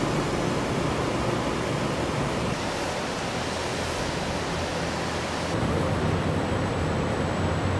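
Rows of high-pressure water jets spraying a new SUV in a factory water-leak test booth: a steady rushing hiss of water on the body and glass. The noise shifts slightly about five and a half seconds in.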